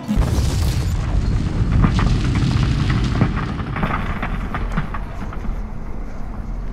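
Explosion sound effect: a sudden loud boom that rolls into a long low rumble, with scattered sharp cracks over the next few seconds, settling into a steadier low rumble.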